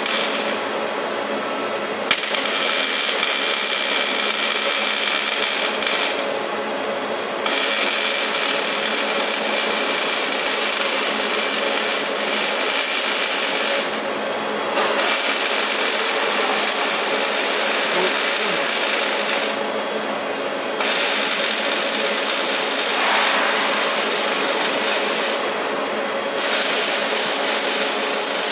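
Factory machinery in an industrial robot cell running: a loud steady hiss over a hum of many steady tones. The hiss drops away for a second or so about every six seconds in a repeating cycle, and there is one sharp click about two seconds in.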